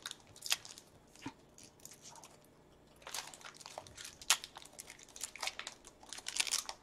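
Faint, scattered crinkles and scratches of plastic as nitrile-gloved hands slide a trading card into a clear plastic holder, busiest around the middle and again near the end.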